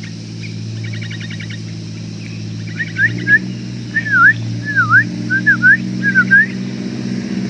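Sooty-headed bulbul calling: short rattling chatters, then from about three seconds a run of loud, swooping whistled notes. A steady low motor hum runs underneath and grows louder near the end.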